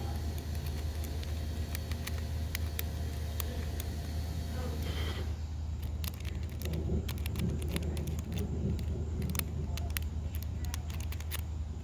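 Lock pins clicking faintly and irregularly as homemade picks work a safe's tumbler lock, over a steady low hum.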